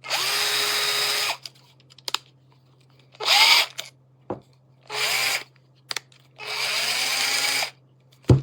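Cordless drill (DEKOPRO 8V) triggered four times in short runs, the motor's whine rising as it spins up and then holding steady. The first and last runs are longer, about a second each. A sharp click near the end.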